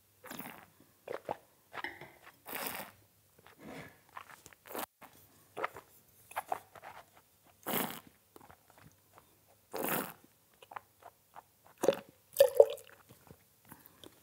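Red wine being tasted: short wet slurps and swishes as it is drawn through with air and worked around the mouth, and spat into a small handheld metal spittoon.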